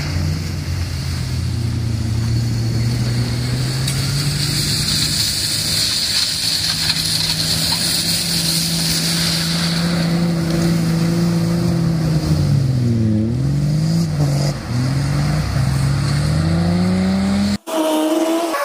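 Four-wheel-drive's engine running hard as it drives through a shallow river ford, with water spray hissing. About twelve seconds in, the engine note drops and then climbs again. Near the end the sound cuts off abruptly.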